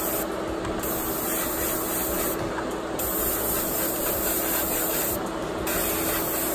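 Paasche Talon gravity-feed airbrush spraying paint: a steady hiss of air and paint mist.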